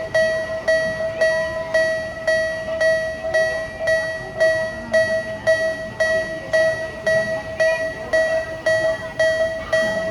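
Japanese railroad crossing warning bell on a miniature railway, ringing in a steady, even beat of about two strikes a second.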